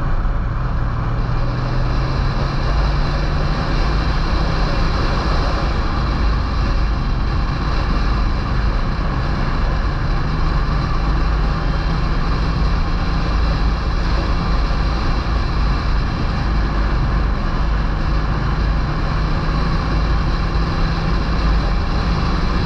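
Touring motorcycle engine running steadily at road speed, its drone shifting slightly in pitch, under heavy wind rush on the bike-mounted camera's microphone.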